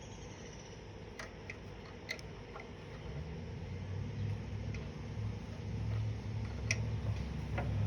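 Scattered light clicks of small metal parts, the carburetor linkage rod and spring, being handled, while the low rumble of a passing car grows steadily louder from about three seconds in.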